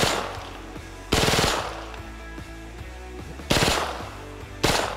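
Full-auto AR-15-platform rifle chambered in .45 ACP firing short bursts of automatic fire. One burst ends just as the sound begins, another comes about a second in, a third about three and a half seconds in, and a brief one near the end.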